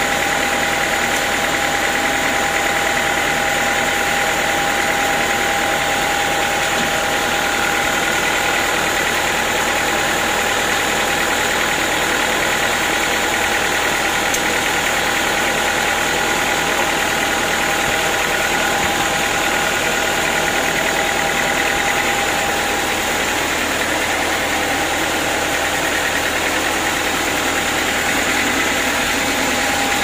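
Band sawmill running steadily: a continuous machine drone with a couple of high, steady whining tones, no change in speed or load.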